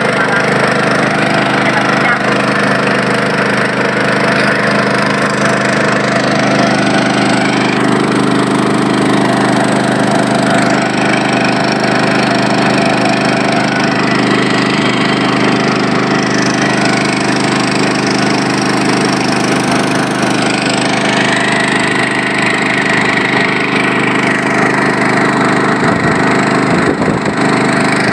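Small boat engine running at a steady speed with the boat under way, an even, unchanging drone.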